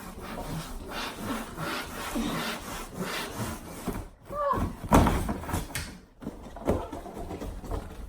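Cardboard packaging and flat-pack coffee table parts scraping and rubbing against each other as the pieces are pulled out of the box, with a knock about five seconds in.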